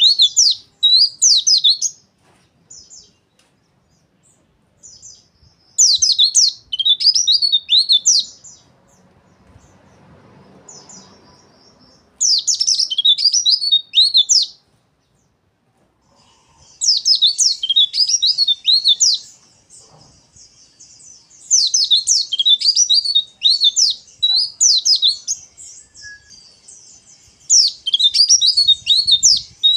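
White-eye (pleci) singing its fast, harsh twittering 'ngeriwik' song in six bursts of about two seconds each, a few seconds apart.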